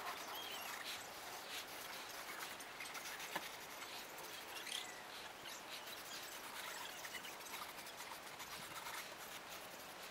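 Paasche hobby airbrush spraying Duracoat onto metal rifle parts: a soft, steady hiss of air and paint with small scattered ticks.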